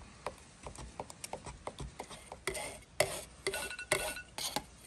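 An aluminum ruler stirring thick epoxy coating in a metal paint can, a run of light clicks and scrapes of metal against the can. The scrapes grow louder in the second half, with a brief metallic ring near the end.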